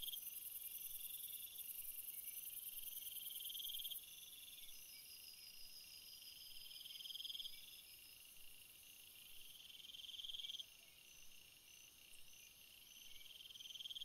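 Faint chorus of chirping insects: a steady, very high pulsing trill, with a lower trill that swells and cuts off about every three seconds.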